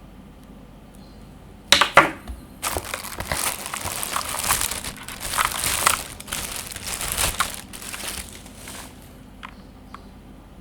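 Packaging of a boxed keyboard rustling and crinkling as it is unwrapped, after a couple of sharp knocks about two seconds in. It ends with a few faint clicks.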